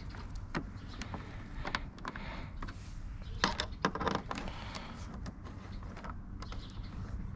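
Light metal clicks and small rattles of Torx bolts and a hand tool being fitted into a motorcycle's windshield fairing. The clicks come irregularly, with a denser cluster of sharper ones about three and a half to four seconds in, over a steady low rumble.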